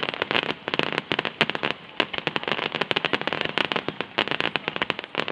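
Fireworks star mine barrage going off: a dense, continuous run of sharp pops and crackles, several a second.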